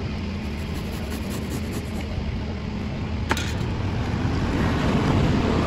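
A steady low mechanical rumble that grows louder from about four seconds in, with one sharp click a little past three seconds.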